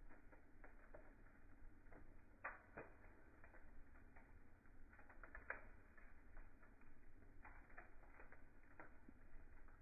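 Wood logs burning in a fireplace, crackling faintly with irregular small pops, a few sharper ones about two and a half and five and a half seconds in.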